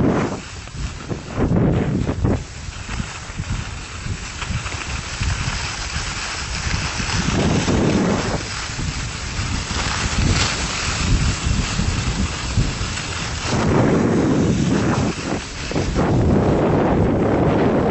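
Wind rushing and buffeting over the microphone during a fast downhill ski run, with the hiss and scrape of skis on packed snow. The rush swells and eases several times.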